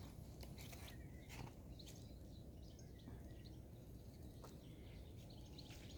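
Near silence with a few faint, scattered crackles from a small wood campfire, and faint bird chirps.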